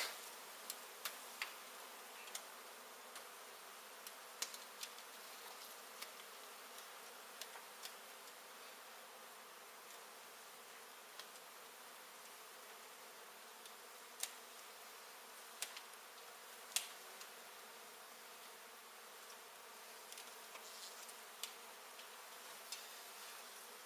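Faint, steady buzzing of a large honey bee colony, broken by scattered sharp clicks, the loudest about seventeen seconds in.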